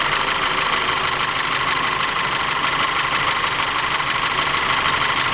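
Audi TT 2.0 TFSI four-cylinder engine idling with a steady, fast knocking tick, about eight a second. It is the foreign noise that the shop traced to low compression and misfires in one cylinder.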